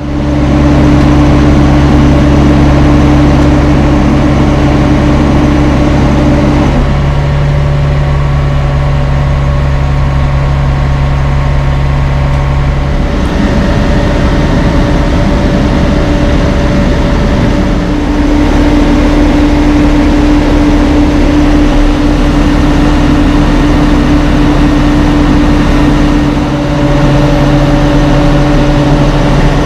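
Heavy diesel truck engines running steadily, a low, even drone whose note changes about 7 seconds in and again about 13 seconds in.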